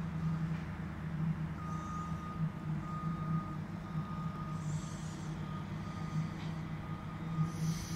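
Heavy construction vehicle reversing, its back-up alarm beeping about once a second over the steady low rumble of its engine, with a few short hisses.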